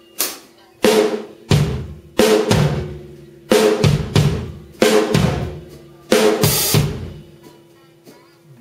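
C&C Custom drum kit with TRX cymbals, played with sticks: bass drum, snare and cymbal hits in a slow, heavy groove, with ringing cymbal wash between strokes. The playing thins out near the end.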